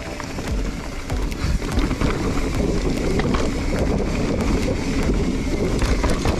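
Mountain bike riding down a dirt trail: steady tyre and ground noise with wind rumbling on the microphone, broken by many small clicks and rattles from the bike over rough ground.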